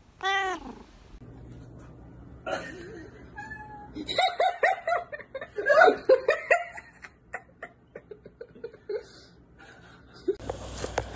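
A cat meows once, a drawn-out call rising and falling in pitch. A few seconds later comes a loud burst of laughter, followed by scattered rustles and clicks.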